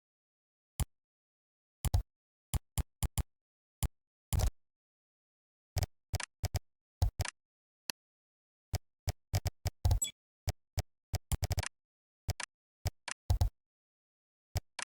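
Computer keyboard typing: irregular single keystrokes and short quick runs of keys, with dead silence between them.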